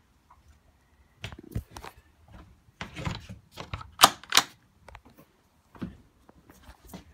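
Metal barrel-bolt latches on a wooden hatch being worked and unlatched by hand: a string of clicks and knocks, the loudest two sharp clacks close together about four seconds in.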